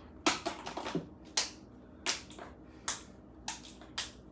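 A series of sharp clicks: a quick run of several near the start, then single ones about every half second to second.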